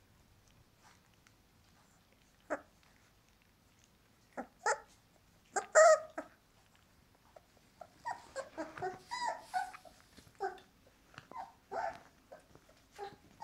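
Young puppies giving short, high cries: a few scattered at first, the loudest about six seconds in, then a quick run of them in the second half.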